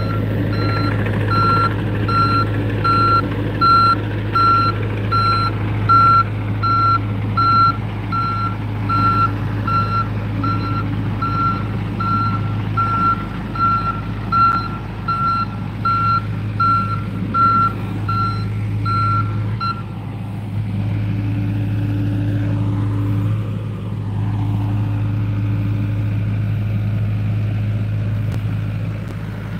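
John Deere compact excavator's diesel engine running steadily while its warning alarm beeps about once every three-quarters of a second. The beeping stops about two-thirds of the way through, and the engine keeps running.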